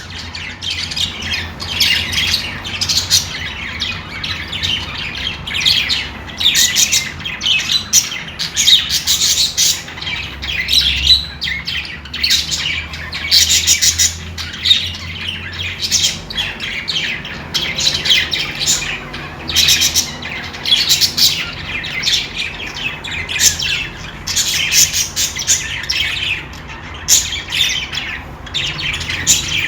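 Pet budgerigars chirping and warbling in a busy, continuous chatter of rapid high chirps with only brief pauses.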